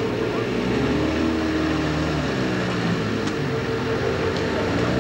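4x4 car's engine revving up and down as it drives through a muddy water hole, its pitch climbing about a second in, dropping after two seconds and rising again near the end, over a steady hum.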